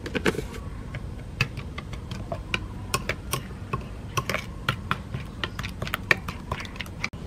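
A metal spoon clinking against a ceramic bowl while beating a runny egg mixture: quick, irregular clinks, several a second.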